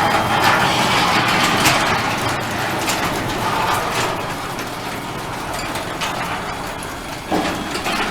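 Genie Chainlift 700 chain-drive garage door opener running, its motor and chain pulling the door closed, slowly getting quieter, with a thump near the end.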